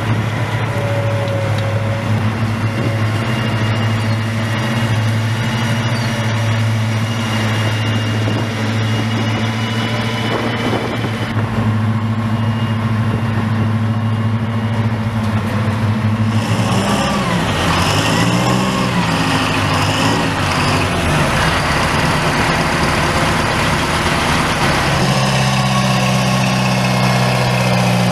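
Bradley fighting vehicle's diesel engine running with a steady low note. A little past the middle its pitch rises and falls for a few seconds, then it settles back to steady running.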